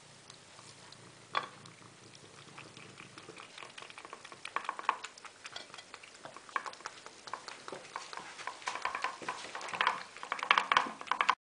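A cat eating egg from a saucer, lapping and chewing with quick wet clicks that come thicker and louder toward the end. The sound cuts off abruptly just before the end.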